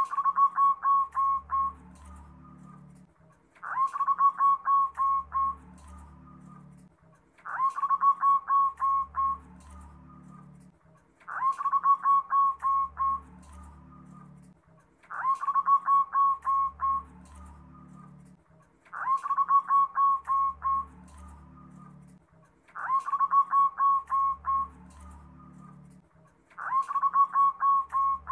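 Zebra dove (perkutut) singing its staccato cooing song. Each phrase is a run of about eight quick, evenly spaced notes, and it repeats roughly every four seconds.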